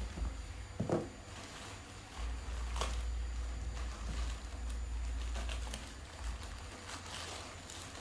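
A few light knocks and clicks from objects being handled, over a steady low rumble.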